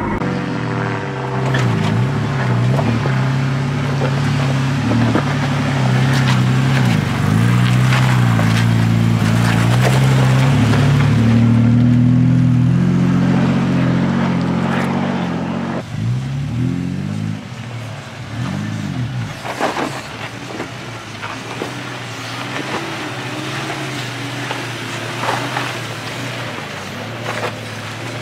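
Four-wheel-drive engine running under load as the vehicle drives a dirt track, its note rising and falling with the revs. About halfway through, the sound changes to 4WDs crawling up a rocky track, engines revving up and down while tyres crunch over stones.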